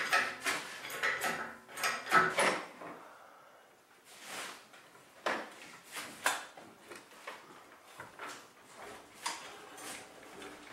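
Irregular clicks, knocks and rattles of hand tools and engine parts being handled in a car's engine bay, loosening fittings to take the engine out. The sounds are closest together and loudest in the first three seconds, then come as scattered single clicks.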